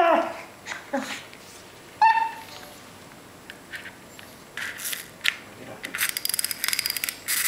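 A papillon dog gives one short yip about two seconds in. Over the second half comes clicking from a small wind-up ladybug toy, turning into rapid ticking near the end.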